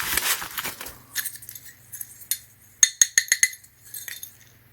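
Packaging crinkling briefly, then a quick run of sharp metallic clinks about three seconds in as metal ground spikes, seemingly aluminium, are handled and knock together.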